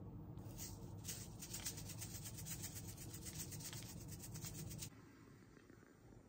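Sesame seeds being crushed in a hand grinder over the dish: a quick, even rasping grind, stroke after stroke, that starts about half a second in and cuts off suddenly near the end.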